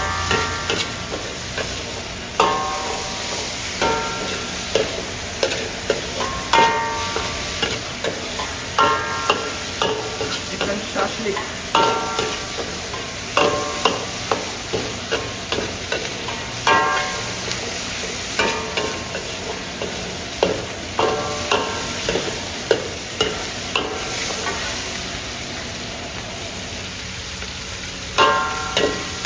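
Diced chicken and onion sizzling in oil in a metal wok, stirred with a metal ladle that scrapes and knocks against the pan, each knock ringing briefly. The knocks come irregularly, often several close together, over a steady frying hiss.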